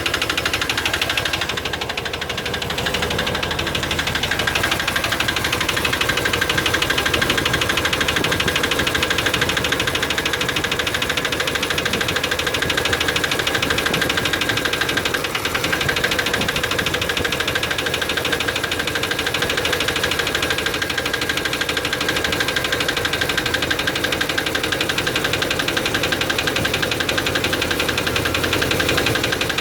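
Chevy 350 small-block V8 (5.7 L) running steadily with a rapid, even clicking tick. The owner puts the clicking down to low lubrication.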